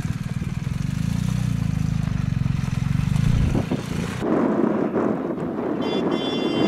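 Motorcycle engine running steadily. About three and a half seconds in its low drone fades and a rushing noise takes over, with two brief high-pitched tones near the end.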